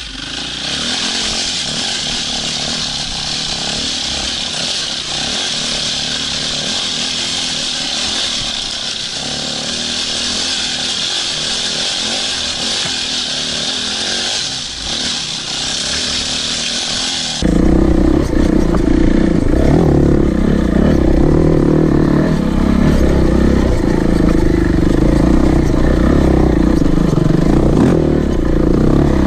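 Off-road motorcycle riding a dirt trail: engine running at steady throttle with a strong hiss over it. About two-thirds through, the sound changes abruptly to a louder, deeper single-cylinder engine note, from the KTM 690 Enduro.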